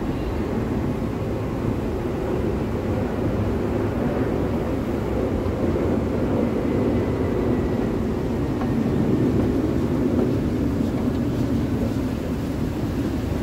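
Miami Metromover people-mover car, a rubber-tyred automated train, running along its guideway: a steady running noise, with a faint high whine about halfway through.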